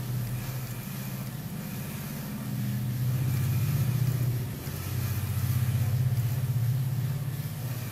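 A low motor rumble, swelling louder twice.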